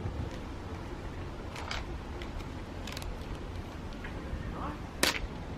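Hand spray bottle spritzing water onto sunstrip vinyl on a windscreen: a few faint short sprays, then a louder one about five seconds in, over a low steady background rumble.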